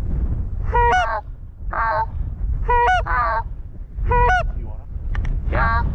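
Canada geese honking: a series of honks, roughly one a second, over a steady low rumble.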